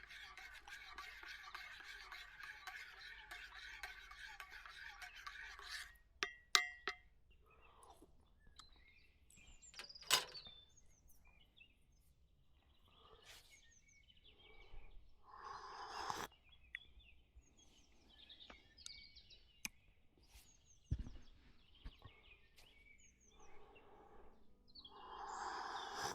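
Birds chirping on and off. A dense chorus of calls fills the first few seconds and cuts off abruptly about six seconds in. There is a sharp click about ten seconds in and a few short rushing noises.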